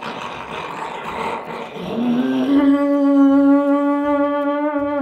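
A man imitating a running blender with his mouth: a rushing, hissing noise for about two seconds, then a held buzzing hum that slides up slightly and stays steady before stopping abruptly.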